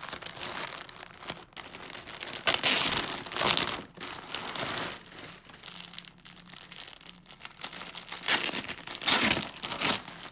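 Clear plastic garment bags crinkling and rustling as hands open them and pull clothing out. It comes in uneven bursts, loudest about two and a half seconds in and again around eight to nine seconds in.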